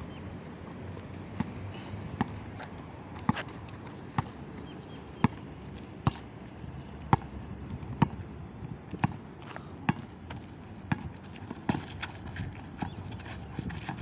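Basketball being dribbled on asphalt: a steady, slow bounce about once a second over faint background noise.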